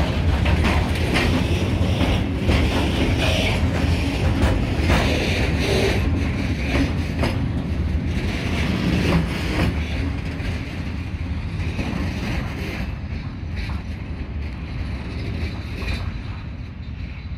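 Freight train of open-top wagons rolling past, with a steady low rumble and wheels clicking over the rail joints. The clicking thins out and the sound grows gradually quieter after about ten seconds.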